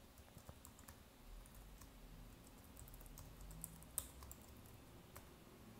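Faint keystrokes on a computer keyboard as a password is typed: a run of light clicks, with one sharper click about four seconds in.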